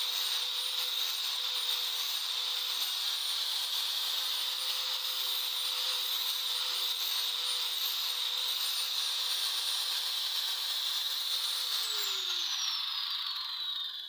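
Electric angle grinder running steadily, grinding the steel blade of a long bolo with a constant whine over a grinding hiss. About twelve seconds in it is switched off and the whine falls as the disc spins down.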